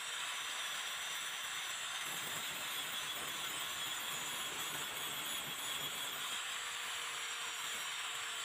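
Electric angle grinder running with an abrasive disc pressed against a small steel blade, a steady hissing grind over a faint constant motor tone.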